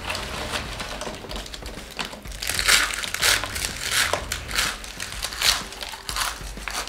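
Doritos tortilla chips crunching: hands rustling through a pile of chips in a metal tray, then mouthfuls of chips being crushed and chewed fast, the crunching loudest from about two and a half seconds in.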